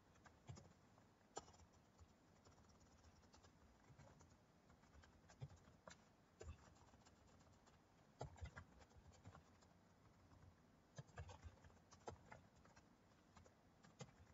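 Faint computer keyboard typing: scattered single key clicks, with short runs of quicker keystrokes around the middle and again near the end.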